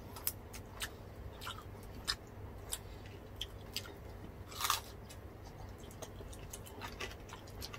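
People chewing and crunching crispy deep-fried pork (bagnet and crispy pata), with scattered small crackles and one louder crunch a little past halfway.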